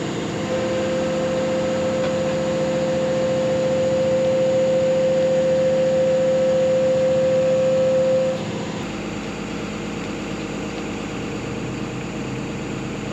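Excavator's diesel engine running steadily, with a strong steady high hydraulic whine for about the first eight seconds that cuts off abruptly, after which the machine runs a little quieter.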